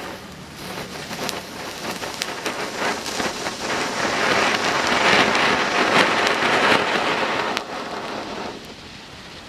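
Homemade volcano fountain firecracker, packed with match-head and sparkle powder, burning: a steady hissing spray of sparks with scattered crackles. It swells to its loudest about halfway through and dies down near the end.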